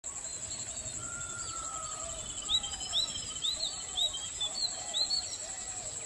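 Outdoor nature ambience of several birds calling. A run of short upward-sweeping chirps repeats about twice a second through the middle, with softer lower warbling calls beneath, over a steady high whine.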